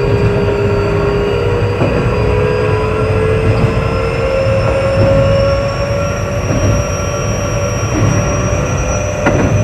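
Keio 8000 series electric train running, its traction motor whine rising steadily in pitch as it gathers speed, with a clack from the wheels over rail joints about every second and a half.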